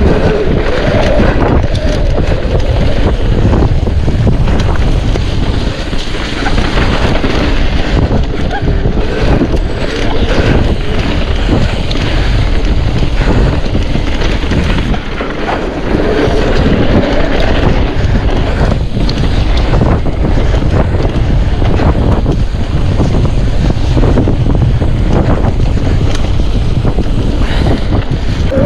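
Wind rushing over the camera microphone of a mountain bike on a trail ride, over a steady low rumble from the tyres and frequent knocks and rattles from the bike on rough ground.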